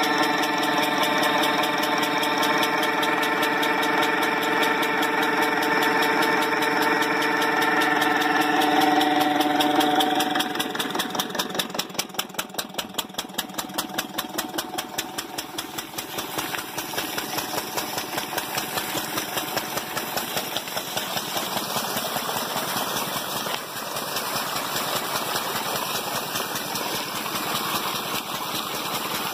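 Kirloskar 10 hp engine running steadily, belt-driving a vertical turbine irrigation pump. For about the first ten seconds a steady hum with several even tones; after that a fast, regular pulsing beat of the running engine.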